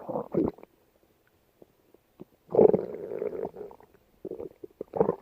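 A hungry person's empty stomach growling and gurgling in irregular bouts: a short gurgle at the start, a longer rumble of about a second around halfway, and a few small gurgles near the end.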